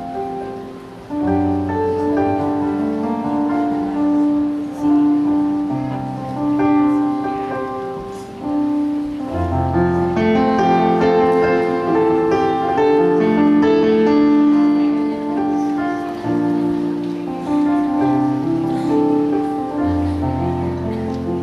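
Music with keyboard accompaniment: sustained chords over a bass line that changes every second or two.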